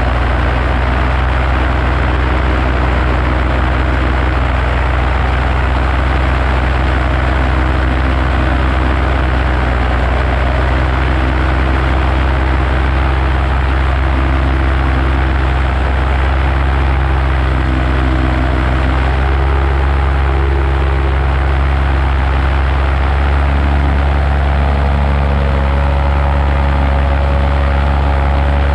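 Paramotor engine and propeller running steadily at cruising power in flight, a constant low drone with a rushing hiss over it; its note shifts slightly near the end.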